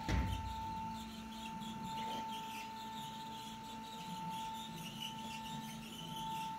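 Ground-painting machine's print-head carriage motor giving a steady high whine as the head travels across the gantry rail, with a sharp knock at the very start and a faint scratchy noise above the whine.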